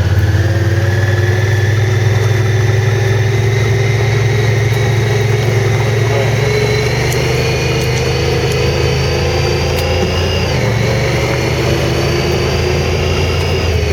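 A four-wheeler's engine running steadily under way, its pitch creeping slowly upward and then dropping a little about ten and a half seconds in.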